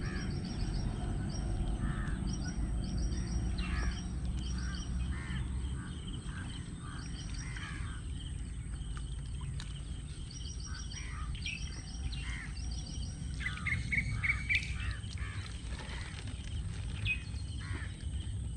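Birds calling in the mangroves: many short repeated calls and quick high trills over a steady low rumble.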